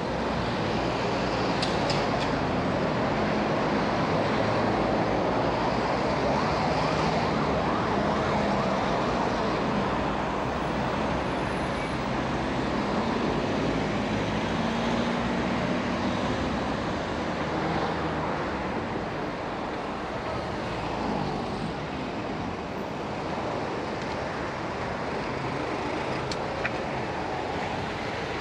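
Steady city road traffic heard from a bicycle riding in it: the engine and tyre noise of cars passing close by, with rumble from the rider's own movement.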